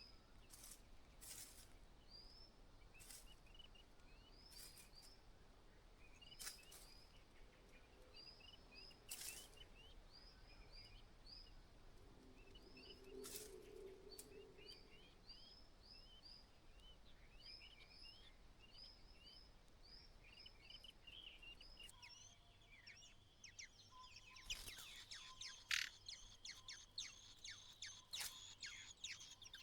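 Faint, short, high chirps of White-browed Laughingthrushes repeated at about two a second. Near the end the chirps thin out and are joined by a quick run of clicks and rustles.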